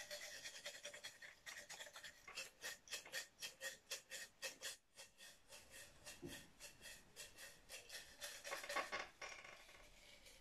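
Folded paper slips rustling and rattling inside a ceramic mug shaken hard in quick strokes, about five a second, with a short pause near the middle.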